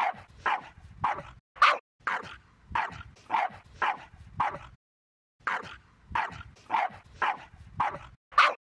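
A dog barking over and over at an even pace, about two barks a second, with a brief pause about five seconds in.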